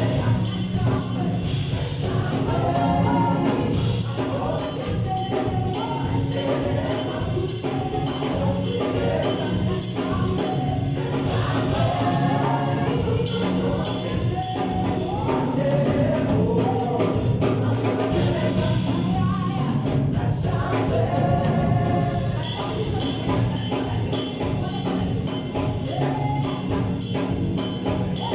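Gospel worship song: a group of voices singing together over instrumental backing, with tambourine-like percussion.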